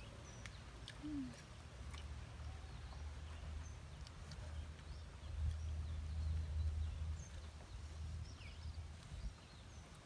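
Outdoor ambience: a low steady rumble that is loudest about halfway through, with faint short bird chirps and a few sharp small clicks scattered through.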